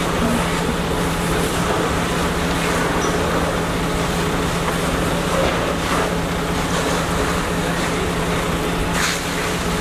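Steady rumble of fire engines' engines and pumps running, with a constant low hum, under the rushing noise of a large building fire.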